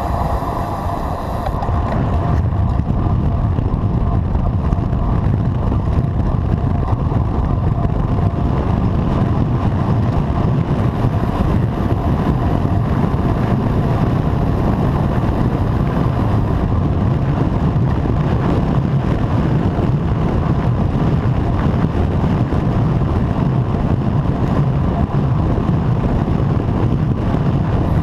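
Wind rushing over a bike-mounted action camera's microphone during a fast road-bike descent at about 50 km/h: a loud, steady low rumble.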